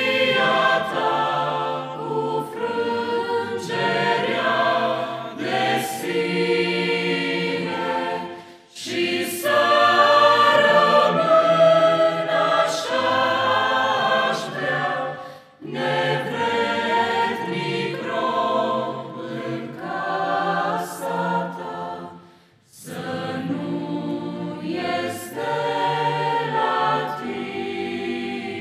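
Mixed choir of men's and women's voices singing a hymn in Romanian, phrase by phrase, with three brief breaks for breath.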